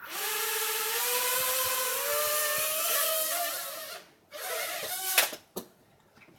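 Small toy quadcopter drone's motors and propellers whining as it lifts off, the pitch wavering and edging up; the whine cuts out about four seconds in, then a short second burst ends in a couple of sharp knocks: a failed takeoff.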